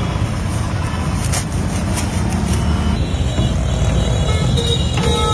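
Busy street traffic with a steady low engine rumble. A vehicle horn sounds near the end.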